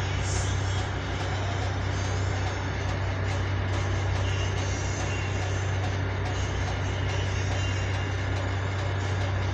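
Steady drone of a ship's engines and machinery: a constant low hum with an even rushing noise over it, unchanging throughout.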